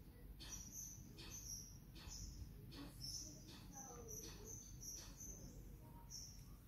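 Faint, short high chirps repeating irregularly, about two a second, over quiet room tone.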